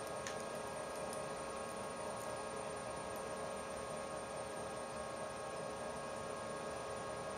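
Inverter-driven milling machine running steadily while a twist drill cuts into a steel part: an even hum with a few steady tones, one of them a thin high whine.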